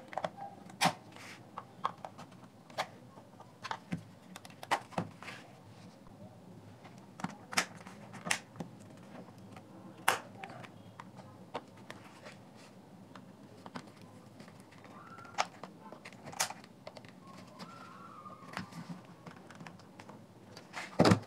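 Flat-blade screwdriver prying along the seam of a Dell laptop battery's plastic case: scattered sharp clicks and ticks of plastic on plastic as the clip locks are worked loose, the loudest near the end.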